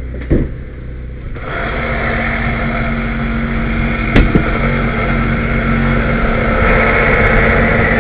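Engine of a hydraulic rescue-tool power unit running, picking up to a louder, busier note about one and a half seconds in as the tool is worked, with a sharp knock just after the start and a louder one a little after four seconds.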